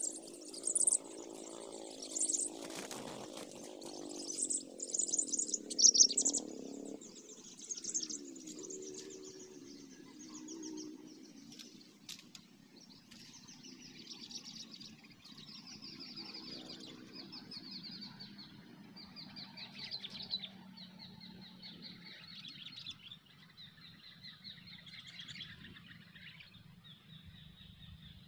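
Sooty-headed bulbuls (kutilang) calling with quick high chirps, one phrase after another. A low hum with several pitches sits underneath for the first seven seconds or so.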